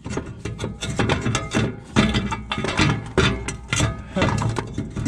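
Heavy replacement starter motor knocking and scraping against the mounting flange and studs as it is twisted by hand to find the angle that lets it seat. A quick, irregular run of metal clunks.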